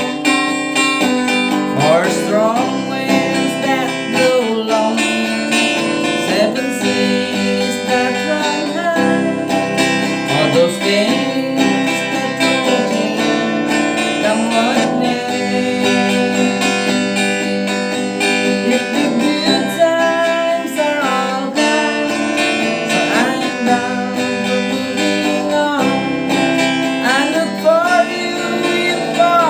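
Acoustic guitar strummed steadily in an instrumental passage of a folk song, with some sliding melody notes over the chords.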